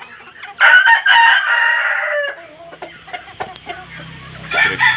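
Rooster crowing: one crow about half a second in, lasting under two seconds and dropping in pitch at its end, then a second crow starting near the end.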